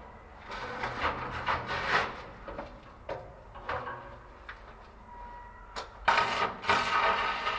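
Stick (arc) welding: a few seconds of scraping and knocks on metal, then about six seconds in the arc strikes and a steady loud crackling hiss begins.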